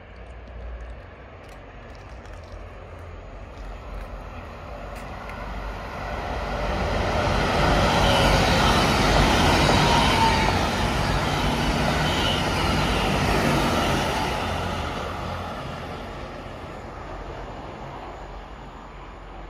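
Three coupled IC3 diesel multiple units passing on the line. The sound of the train's engines and wheels on the rails grows over several seconds, is loudest for about six seconds as it goes by, with faint whining tones, then fades as it runs away.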